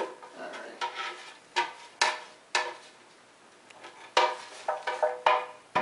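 A small scooper scraping and knocking inside a Vitamix blender jar as the last of a ground walnut-and-date crust is dug out. It gives a series of sharp knocks and scrapes, each with a short ring, busiest near the end.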